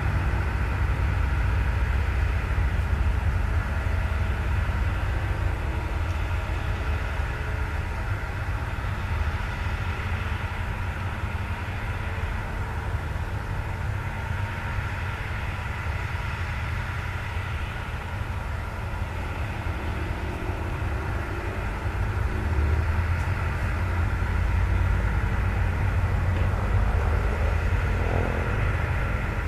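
Hitachi Zaxis 200 crawler excavator's diesel engine running steadily under working load, with a steady hydraulic whine above the low engine drone as the boom and bucket move. The sound swells for a few seconds about two-thirds of the way through.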